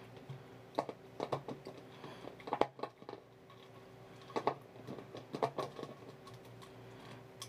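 A husky's teeth clicking and crunching on the plastic cap of a soda bottle in irregular bursts as it works the cap off, with the thin bottle crackling under its mouth.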